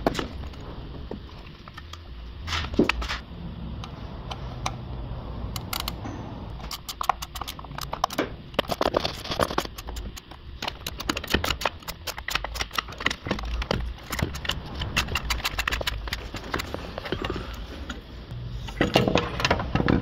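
Irregular clicks and metallic clinks of hand tools working the bolts on the hybrid inverter's metal housing, coming thick through the middle with a burst near the end, over a low steady hum.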